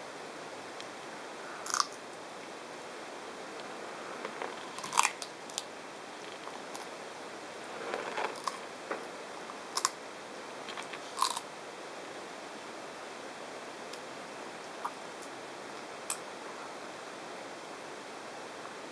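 Leopard tortoise biting and chewing a thornless prickly pear cactus pad: scattered crisp crunches, most in the first twelve seconds, with a couple of faint ticks later, over a steady hiss.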